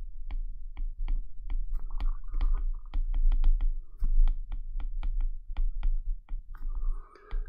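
Stylus tip tapping and scratching on a tablet's glass screen while handwriting: a run of quick, irregular clicks over a steady low rumble.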